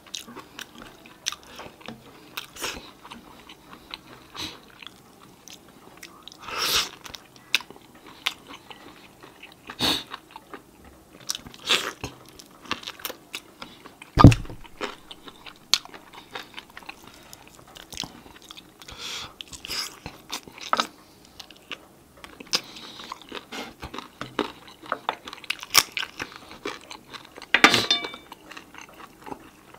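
A person biting and chewing sauced chicken wings close to the microphone, with many short clicks of mouth and teeth on the meat. A single loud thump comes about halfway through.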